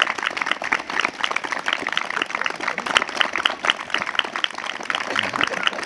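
A small group of people applauding: many overlapping hand claps, keeping on at an even level.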